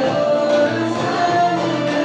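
Pop music playing with a steady beat.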